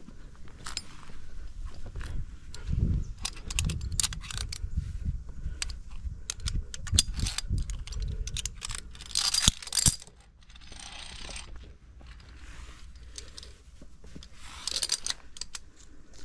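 Via ferrata carabiners clinking and clicking, metal knocking on metal, amid scuffing and handling noise. There are two louder scraping rustles, about ten seconds in and near the end.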